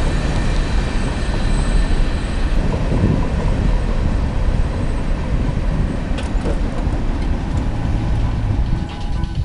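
Steady rolling rumble of a CSX mixed freight train moving away after its cars have cleared the crossing.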